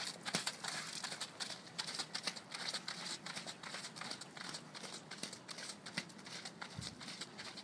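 Piebald cob's hooves striking a wet, puddled arena surface in a quick run of soft thuds and splashy clicks.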